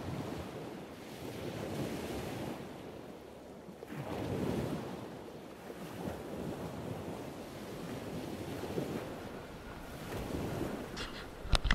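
Shallow river water rushing and lapping, with wind buffeting the microphone in uneven swells. A sharp knock near the end.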